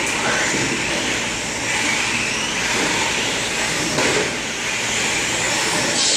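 Several RC stadium trucks running laps on a dirt track, their motors whining up and down in pitch as they accelerate and slow, over a steady hiss of running gear and tyres on the dirt.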